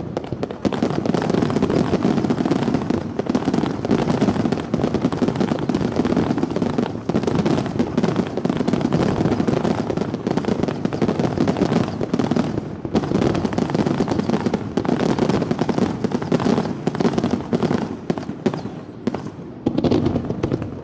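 Aerial fireworks going off in a dense, rapid barrage of overlapping bangs and crackling, with a brief lull about thirteen seconds in.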